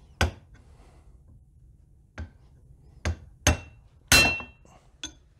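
Hand hammer striking a steel punch to drive a very tight bolt: about six irregular blows, the loudest near the end ringing metallically.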